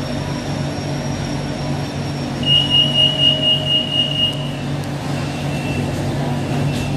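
Door-closing warning on a BTS Skytrain car: a rapid high-pitched beeping for about two seconds, starting a couple of seconds in, over the steady hum of the train car.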